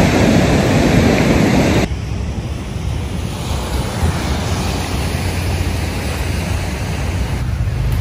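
Ocean surf washing ashore with wind blowing over the microphone. The wash is louder for the first two seconds, then drops suddenly to a quieter, steady wash.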